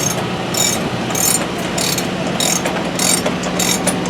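A ratchet wrench clicking in repeated strokes, about one or two a second, as the supercharged Hemi is turned over by hand with its spark plugs out to check whether the engine is seized.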